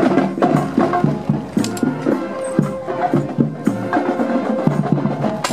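High school marching band playing as it marches, with held instrument notes and frequent sharp drum and percussion hits.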